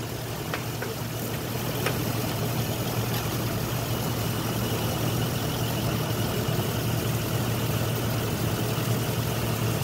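Isuzu engine idling steadily, left running while the 4L30E automatic transmission is filled with fluid. A few faint tool clicks come in the first two seconds as the fill plug is worked loose.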